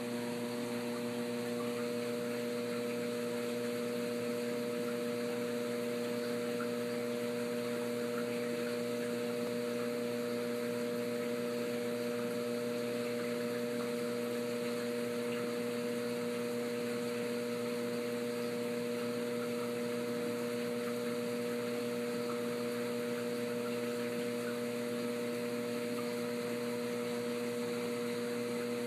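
Steady hum of reef-aquarium pumps, with an even hiss of moving water over it.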